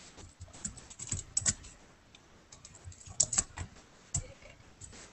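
Computer keyboard keys clicking in short, irregular clusters, as in entering keyboard shortcuts.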